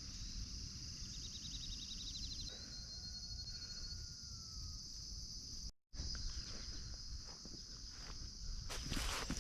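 Steady high-pitched chorus of crickets and other insects on a summer morning, with a short rapid bird trill and a slow falling whistle about a third of the way in. The sound drops out for an instant about two-thirds of the way through.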